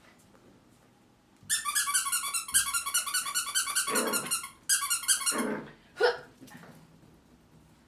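A puppy at play with a fast run of high squeaks, in two bursts lasting about three seconds and one second, with short lower growl-like sounds mixed in and one more near the end.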